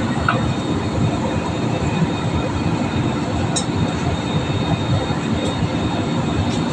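Steady low rumble of a jet airliner's cabin in cruise: engine and airflow noise heard from a window seat over the wing.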